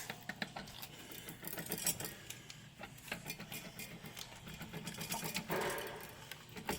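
Rapid, uneven metallic clicking and rattling of hand tools and car parts being handled and worked.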